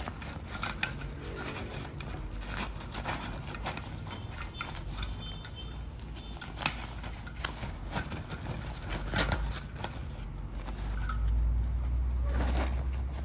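Handling noise as a folding metal card-type camping stove is packed into its cloth drawstring storage bag: scattered small clicks and taps of the metal parts with fabric rustling, and a low rumble near the end.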